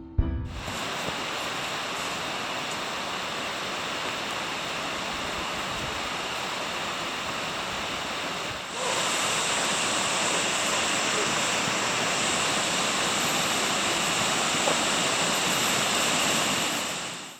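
Jōkōji Falls: the steady rush of falling water. About nine seconds in it jumps louder and brighter.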